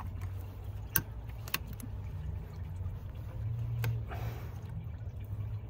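Sharp metallic clicks of hose-clamp pliers working spring clamps on rubber coolant hoses at a transmission cooler: two about half a second apart near the start, then another a few seconds later. Under them runs a low steady rumble.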